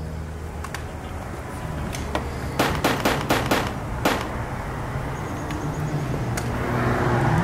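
A rapid string of about eight handgun shots in under two seconds, starting a little past two and a half seconds in, over a steady low hum.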